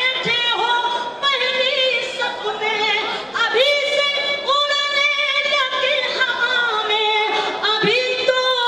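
A woman singing an Urdu couplet unaccompanied in tarannum, the sung style of recitation at a mushaira, through a microphone, with long held notes and sliding, wavering ornaments.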